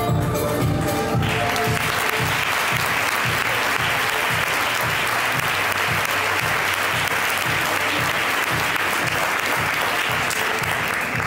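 Audience applause breaking out about a second in and carrying on steadily, over background music with a steady low beat.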